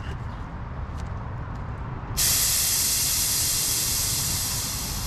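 Air hissing out of a small brass valve fitting, starting abruptly about two seconds in and easing off slightly toward the end.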